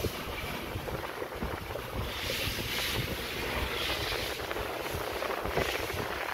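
Wind and handling noise on the phone's microphone: a steady hiss with small crackles and rustles, swelling three times like gusts.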